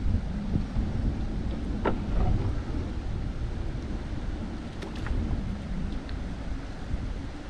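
Wind buffeting the microphone as a low, uneven rumble, with a couple of faint ticks about two and five seconds in.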